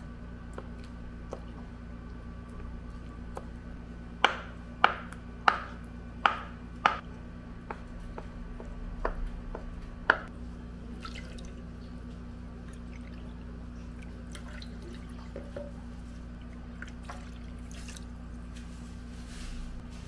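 Kitchen knife chopping through soft tofu and knocking on the cutting board: five sharp taps a little over half a second apart, a few fainter ones, and one more about ten seconds in, over a steady low hum.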